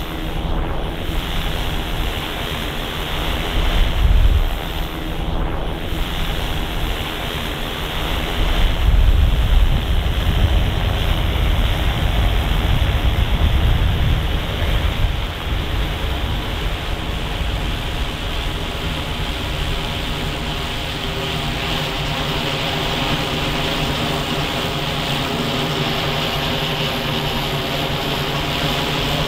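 Tethered multirotor drone's propellers humming steadily, with wind buffeting the microphone in a low rumble. The even hum of the rotors comes through more clearly in the second half.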